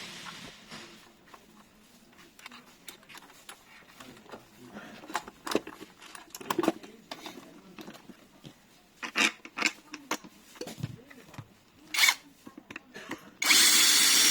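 Metal and plastic parts of a door lock clicking and knocking as they are handled and fitted. Near the end comes a loud burst of noise lasting about a second.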